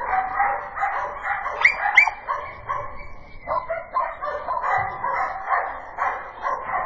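Dog barking repeatedly, two to three barks a second, with two sharper, higher yips about two seconds in.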